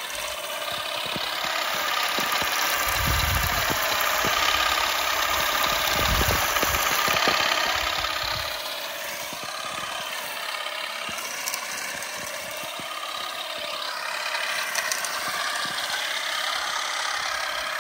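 Derentürk olive harvester, the electric shaker run off a tractor battery, running continuously with a whirring rattle; its pitch wavers up and down as it works. A few low rumbles come through in the first half.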